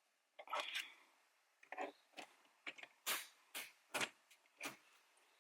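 Panel-removal tool prying at the corners of a plastic dashboard trim panel: a run of irregular small clicks and scrapes as the panel's clips are worked loose, the sharpest clicks in the second half.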